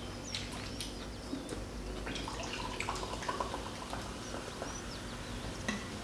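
Quiet eating sounds: scattered small clicks and wet mouth noises over a steady low room hum.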